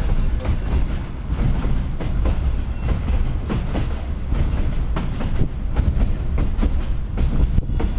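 Narrow-gauge passenger car rolling along the track: a steady low rumble with irregular clicks and knocks from the wheels running over the rails, heard from beside an open window.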